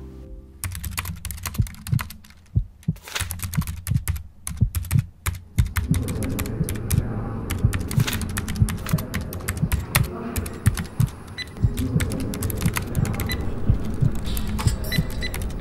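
Rapid, irregular clicking of computer keyboard typing over a low, throbbing pulse.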